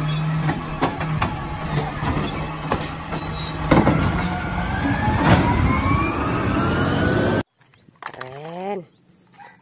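Automated side-loader garbage truck running as its robotic arm lifts and tips a wheeled trash cart, with a couple of sharp knocks from the can and a rising whine. The sound cuts off suddenly about seven seconds in.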